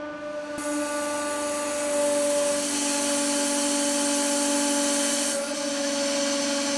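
Hydraulic press running under load: the pump motor gives a steady whine, and a hissing rush joins it about half a second in. The rush grows louder about two seconds in and eases slightly near the end.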